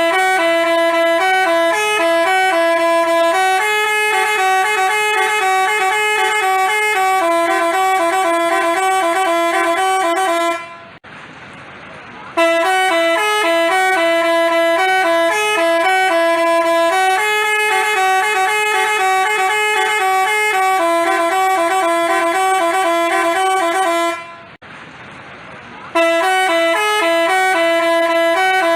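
Telolet basuri multi-tone bus horn playing a tune, loud, in long phrases of quick changing notes, stopping twice for about a second and a half before starting again.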